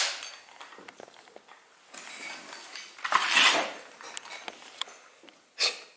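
Scattered knocks, scrapes and rustles of someone moving through a cluttered room and handling things on a gritty floor, the loudest a scraping rustle about three seconds in and a short burst near the end.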